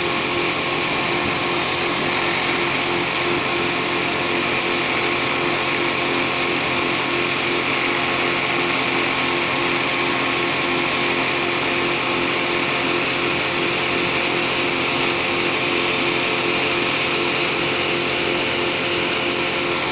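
Electric wood crusher, a hammer-mill shredder with a cyclone, running steadily at speed: an unbroken mechanical whirr with several steady tones through it.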